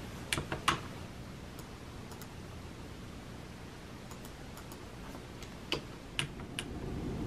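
Typing on a computer keyboard: a short run of keystrokes in the first second, then a pause and a few scattered single clicks near the end.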